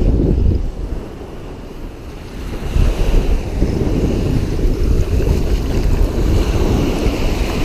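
Wind buffeting the microphone in a rumbling, gusty noise over water lapping at the shore. The rumble eases for a second or so about a second in, then picks up again.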